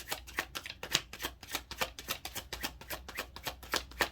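Tarot cards being shuffled by hand: a quick, even run of soft card clicks, about six or seven a second.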